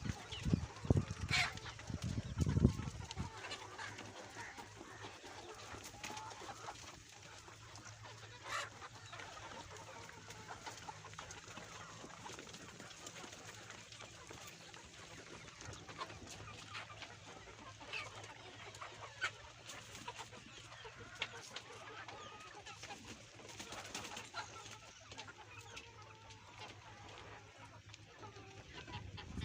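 Chickens clucking, with short, sharp calls scattered throughout; the loudest calls come in the first few seconds.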